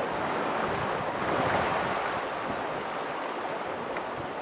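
Steady rushing noise of a river's flowing water.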